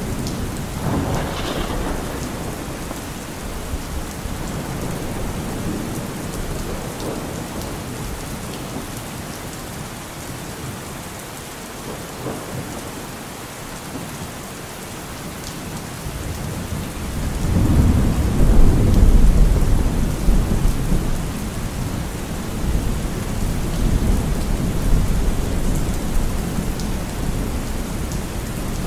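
Steady rain with thunder. A short rumble comes right at the start, and a louder, deep rolling rumble swells about two-thirds of the way through, peaks and fades out slowly.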